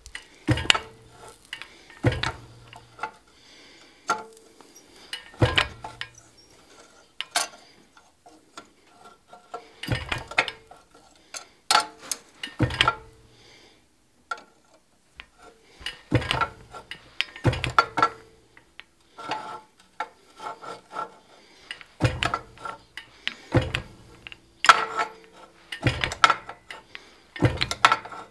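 Fly press driving a chisel into a hot iron bar: a sharp metallic clank at each stroke, roughly one every one to two seconds and sometimes two close together, with small clinks in between. These are the crosswise chisel cuts down the bar that set up a pineapple twist.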